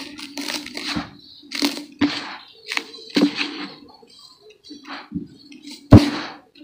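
Hands crushing and crumbling dry, powdery brown dirt in a basin: a run of irregular crunchy crackles as clumps break apart and the dirt sifts through the fingers, with one heavier thump near the end.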